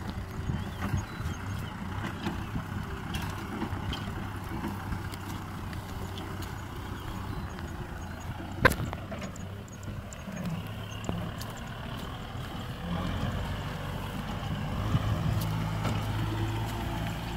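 Kubota M6040SU tractor's four-cylinder diesel engine running steadily as it pulls a trailer through mud, its note getting stronger and more even near the end. One sharp click about halfway through.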